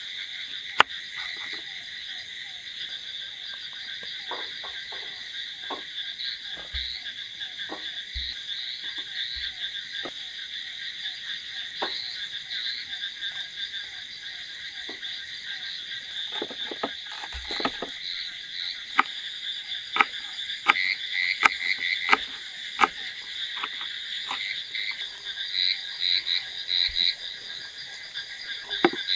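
A chorus of frogs calling steadily in dense, trilling bands. Over it come scattered sharp knocks and clicks from a knife cutting vegetables on a wooden board and from food being set on a metal grill, thickest about two-thirds of the way through.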